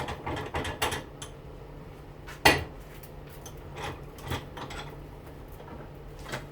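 Metal hand tools clicking and clinking against a front-load washing machine motor during teardown, with a quick cluster of clicks at first, one sharp metallic knock about two and a half seconds in, and a few lighter clicks after, over a steady low hum.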